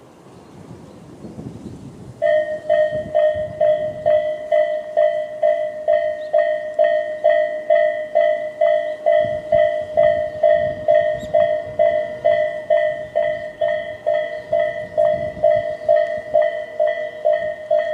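Japanese electronic level-crossing bell of the Tobu type (Tobu sound A) starts about two seconds in and rings steadily at a little over two strikes a second.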